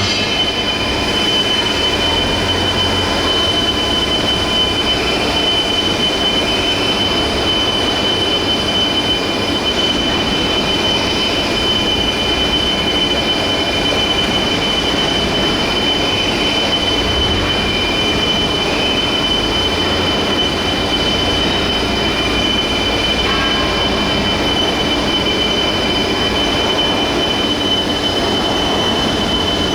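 Heavy industrial machinery running continuously: a steady loud noise with a high metallic whine held at a constant pitch.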